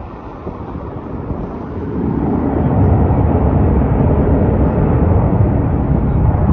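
Boeing 737-800's CFM56 jet engines at take-off thrust, a deep steady rumble that grows louder about two seconds in.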